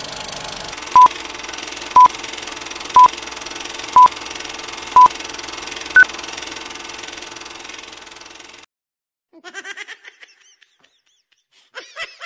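Film-countdown leader sound effect: five short beeps at the same pitch, one second apart, then a sixth, higher beep, over a steady hiss. The hiss cuts off suddenly about two-thirds of the way through.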